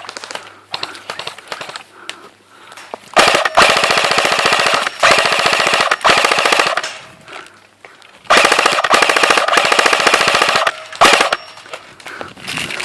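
Rapid automatic gunfire in two long bursts: the first starts about three seconds in and runs nearly four seconds with a brief break, the second about a second later runs some two and a half seconds, followed by one short burst.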